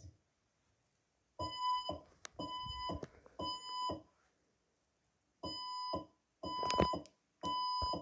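Fire alarm evacuation tone sounding the temporal-three pattern: three half-second beeps, a pause of about a second and a half, then three more. It is a recorded sound effect played back in the room. A couple of sharp clicks fall among the beeps.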